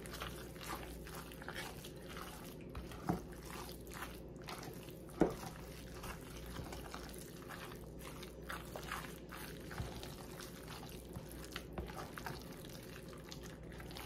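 Thick, chunky tuna salad being stirred and folded with a utensil in a plastic container. It makes soft wet squishing sounds with many small irregular clicks, and two sharper knocks about three and five seconds in.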